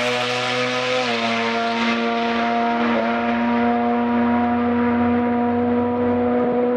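Drag car's engine held at high revs as it runs away down the strip: one steady high engine note that jumps up slightly about a second in, its hiss fading as it pulls away.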